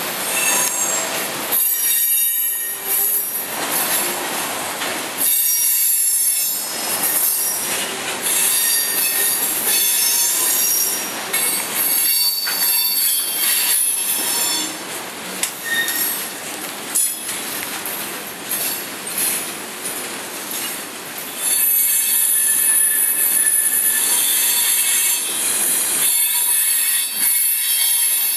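Freight cars (boxcars and autoracks) rolling past on steel rails, with a continuous rumble and clatter of wheels and high-pitched wheel squeals that come and go.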